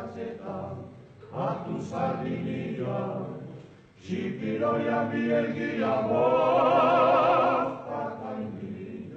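A group of men singing a Basque song a cappella in harmony, in phrases with short breaks between them. Near the end one voice holds a long high note with vibrato, the loudest part.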